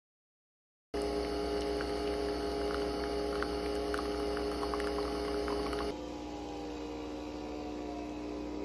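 Nespresso Vertuo capsule coffee machine brewing: a steady motor hum with two held tones and small crackles as coffee streams into a mug, starting about a second in. About halfway through it drops to a quieter steady hum.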